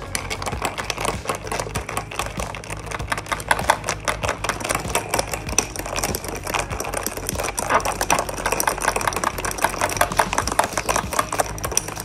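Metal spoon stirring whipped coffee into milk in a tall glass, clicking rapidly and continuously against the glass.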